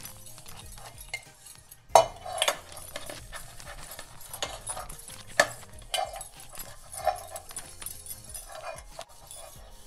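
Stainless-steel cooking pot being scrubbed inside with a cloth while it is turned on a stone countertop: short squeaks of cloth rubbing on the metal every second or so, with sharp knocks and clinks from the pot and glass bangles, the loudest about two seconds in.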